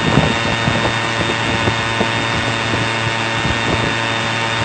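Electric drying blower running steadily: a loud, even rush of air over a steady motor hum.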